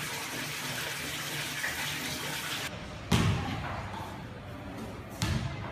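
A steady rushing hiss that stops a little under three seconds in, followed by two heavy thuds about two seconds apart.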